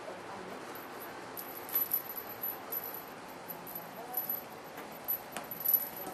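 Small bell on a kitten's collar jingling in short, irregular tinkles as the kitten paws and bats at a toy on a string.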